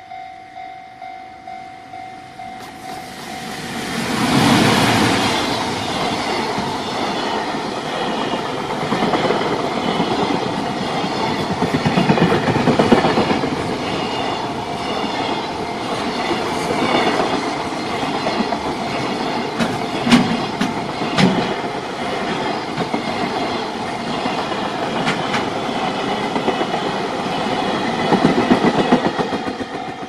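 Level crossing warning bell ringing at about two strokes a second, then an EF200 electric locomotive passes about four seconds in, followed by a long freight train of container wagons rolling by with a steady clickety-clack of wheels over the rail joints. The train's end passes near the end, leaving the crossing bell ringing again.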